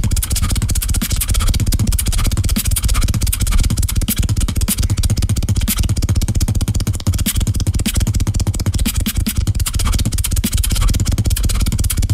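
A beatboxer's continuous low, buzzing bass sound made with the mouth, carrying a fast, even rattling pulse.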